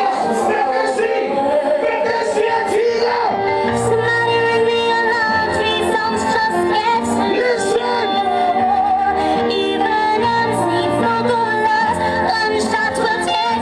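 A reggae or dancehall record playing over a sound system: a sung vocal line over a steady bass and a regular beat.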